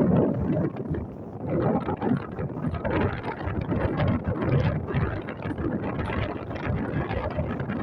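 Wind buffeting the microphone, a rough, gusty rumble that rises and falls.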